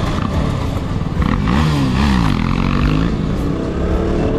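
KTM 250 Duke's single-cylinder engine running under way, heard from the rider's seat. The revs dip and rise briefly about halfway through, then climb near the end as the bike picks up speed.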